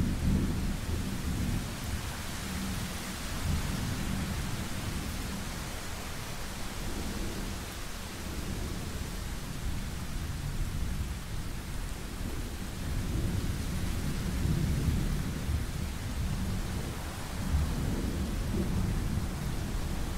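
Thunderstorm: steady rain hiss under long, rolling thunder rumbles that swell and fade, loudest near the start, about three quarters of the way through and again near the end.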